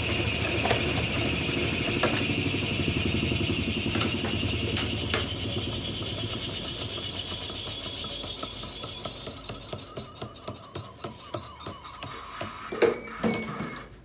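1993 Brastemp Mondial rotativa washing machine winding down at the end of its spin cycle. The running hum and whine slowly fade and sink a little in pitch as the drum coasts, with a run of clicks in the second half and a louder knock near the end.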